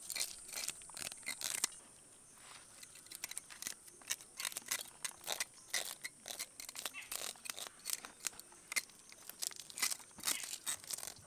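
Scales being scraped off a hilsa fish with a blade: quick, irregular scraping strokes, several a second, with a short pause about two seconds in.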